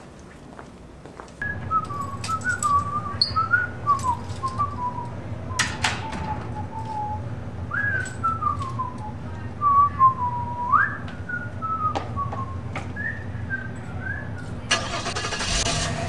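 A person whistling a wandering tune, over a steady low hum that starts about a second and a half in. A burst of rushing noise comes near the end.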